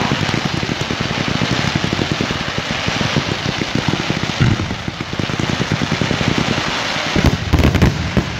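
Fireworks crackling densely, a rapid continuous patter of small bangs, with a few louder bangs near the end.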